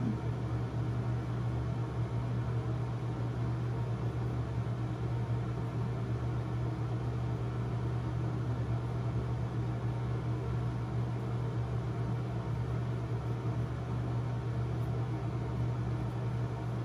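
Steady low hum with an even hiss under it, unchanging throughout.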